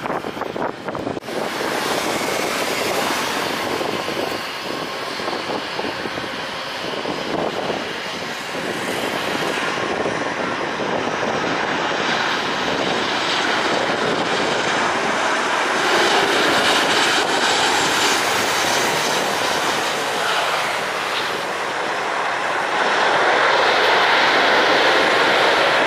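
Boeing 737 jet engines running, a steady loud rushing roar of airliners taking off and landing, with a break about a second in, and growing louder in the last few seconds as the landing aircraft reaches the runway.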